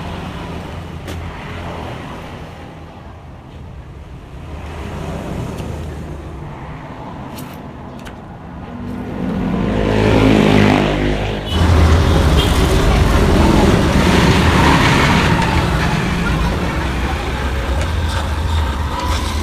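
A motor vehicle engine running, rising in pitch as it revs about halfway through, then running loud and steady.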